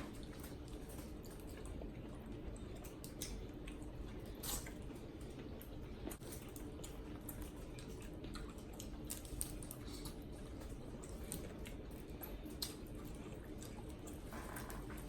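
People eating a seafood boil of shrimp in sauce: wet squishing, smacking and chewing, with many scattered small clicks over a faint steady hum.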